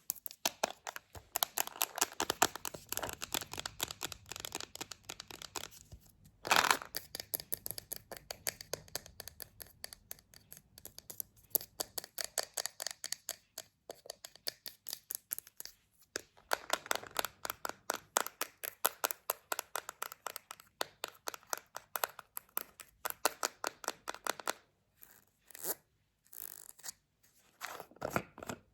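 Rapid, close-miked knocking and tapping: many light, sharp taps a second, with a louder scratchy burst about six and a half seconds in and a few short pauses near the end.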